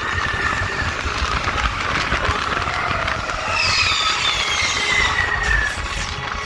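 Space Mountain roller-coaster train running fast along its track, a steady rumble and rattle, with a high squeal falling in pitch from about halfway through for some two seconds.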